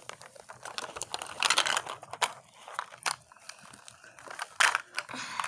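Printed wrapper sheets crinkling and rustling as they are pulled off a Mini Brands plastic surprise ball, in irregular handling noises with a few sharp clicks.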